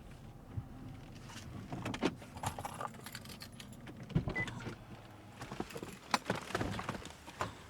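Scattered small clicks and knocks with a light metallic jingle, loudest about two, four and six seconds in.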